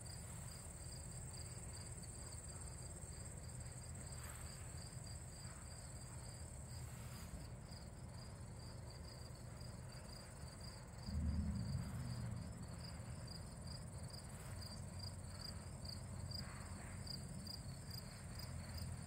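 Late-summer crickets and other insects singing: a steady high trill over a regular pulsing chirp. Beneath them a low rumble swells briefly about halfway through.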